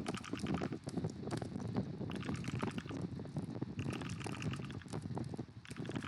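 Fast typing on an Aula F75 mechanical keyboard: a dense, rapid run of key clacks, with a brief pause about five and a half seconds in.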